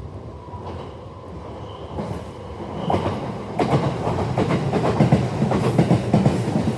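Sotobo Line electric train passing, its noise building from about two seconds in to a loud, dense clatter of wheels over the rails.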